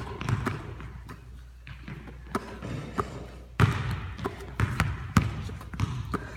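Basketballs thumping irregularly on a hard floor as they are handled, about eight knocks at uneven spacing, the loudest a little past halfway.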